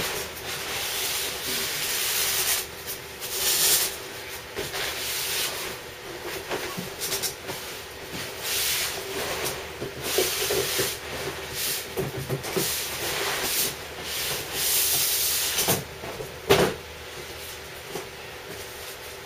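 Cardboard packaging handled on a table: a long shipping box rubbed and slid open and a white inner box pulled out and opened, in irregular scraping and rustling swells with a couple of sharp knocks late on.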